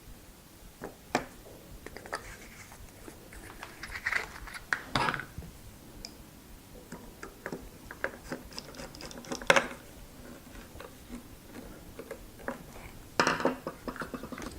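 Irregular light clicks, taps and scrapes of small parts and tools being handled while an electric unicycle's control board is reassembled, with a sharper click about nine and a half seconds in.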